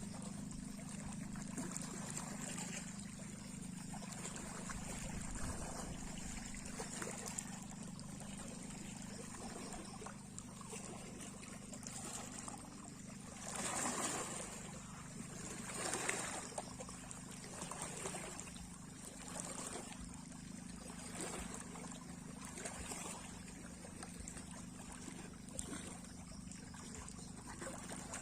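Small sea waves lapping and splashing, with two louder washes about halfway through, a couple of seconds apart, over a steady low hum.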